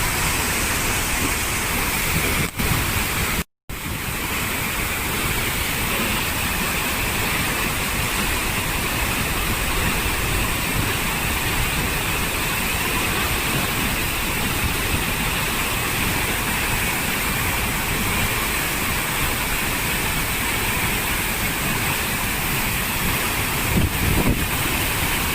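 Waterfall: a loud, steady rush of falling water, broken by a split-second gap of silence about three and a half seconds in.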